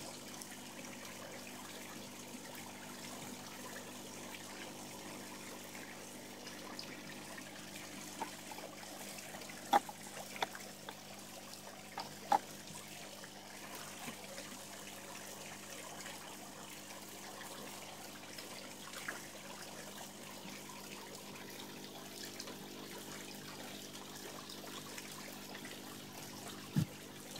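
Water trickling steadily into the pond. A few short sharp clicks stand out about a third of the way in.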